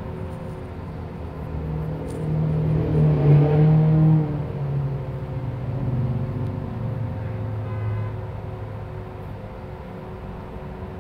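Shuttle bus running along the road, heard from inside the cabin: a steady rumble with an engine note that swells about two to four seconds in, then drops in pitch and fades back.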